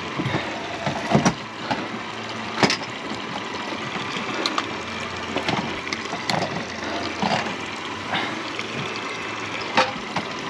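Water sloshing around a boat's hull and the leg of an idling Suzuki outboard, as a steady wash. A few sharp knocks stand out about a second in, near three seconds, and near the end.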